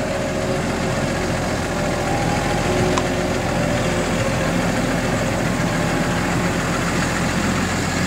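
A 155-horsepower tractor's diesel engine running steadily at low revs as it manoeuvres to line up with a five-furrow reversible plough, with one brief click about three seconds in.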